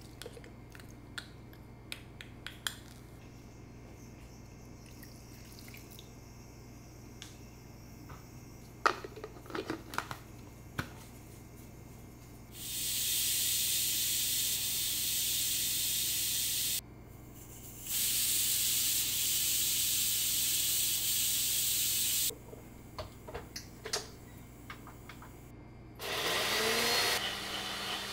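A few light kitchen taps and knocks, then a stainless steel stovetop pressure cooker hisses loudly as steam escapes from its weight valve, twice, for about four seconds each time. Near the end a blender motor starts with a rising whine and settles into a steady run.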